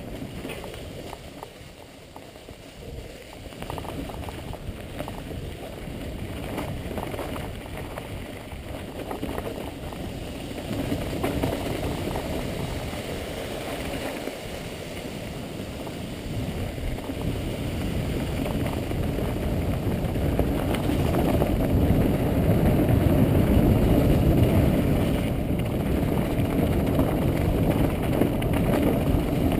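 Mountain bike riding fast down a leaf-covered dirt trail: tyres rumbling and the bike rattling over bumps, with wind noise on the microphone, getting louder as speed builds.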